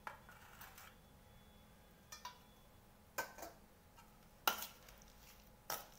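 A spoon stirring green chillies in a spice mix and mustard oil inside a stainless steel bowl, clinking sharply against the bowl about five times, loudest about four and a half seconds in.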